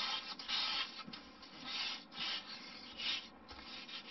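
P400 emery paper rubbed by hand along the edge of a thin balsa elevator in short one-way strokes, about two a second, rounding the edge off.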